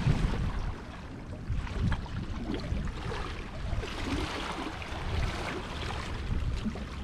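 Seawater washing at a rock wall, with wind rumbling on the microphone: a steady noisy wash that swells into a louder hiss about four seconds in.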